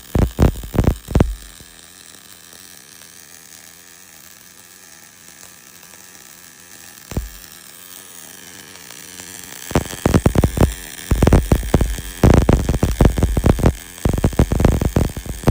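Miller RMD short-circuit MIG welding arc on a root pass, 1 mm wire under 80/20 argon-CO2: a rapid, dense crackle that stops about a second in, leaves only a low hiss, and starts again at about ten seconds.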